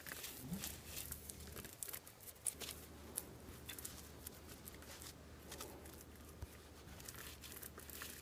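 Faint, irregular small clicks and scratches, like light handling of materials, over a low steady hum.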